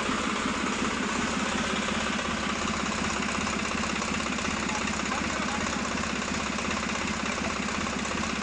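Swaraj 735 FE tractor's three-cylinder diesel engine idling steadily, with an even firing beat.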